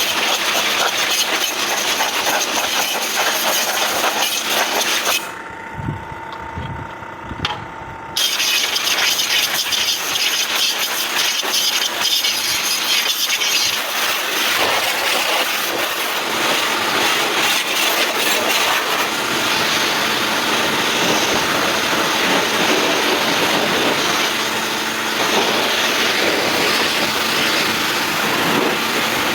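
Water jet spraying steadily as an air conditioner's blower is flushed clean. The spray drops away for about three seconds starting about five seconds in.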